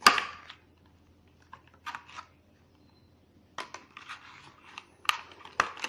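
Plastic packaging of a RAM kit being opened and handled: a sharp click at the start, then scattered small clicks and crinkling rustles.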